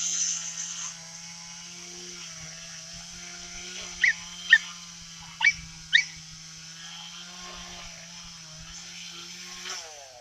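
A small engine running steadily at idle, with four short, high calls from an animal that fall in pitch, about four to six seconds in; these calls are the loudest sounds.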